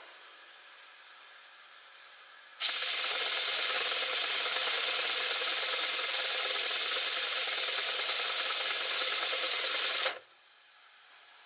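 Compressed air hissing steadily through a gauge one three-cylinder model locomotive chassis as its air supply is opened. It starts abruptly about two and a half seconds in and cuts off sharply near the end, with only a faint hiss before and after.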